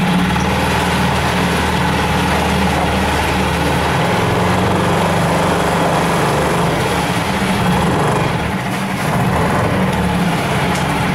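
ALLFA CG F6 four-stroke 6 hp outboard motor running steadily without losing revs, with a slightly bassy note. Its lowest hum shifts about four seconds in.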